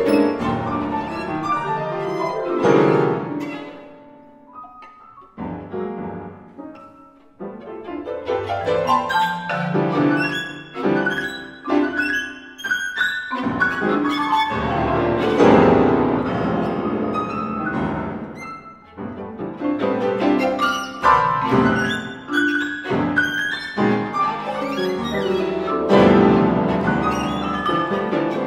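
Contemporary chamber music for violin, piano and marimba: bowed violin lines over struck piano and marimba notes. About four seconds in it thins to a quiet, sparse passage, then builds back up.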